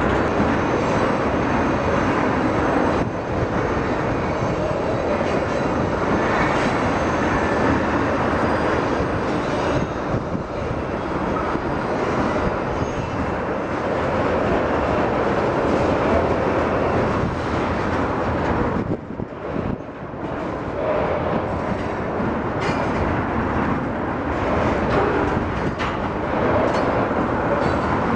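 Freight train of black tank cars rolling steadily past at close range: a continuous noise of steel wheels on rail with rattling and clicking cars, dipping briefly a little past two-thirds of the way through.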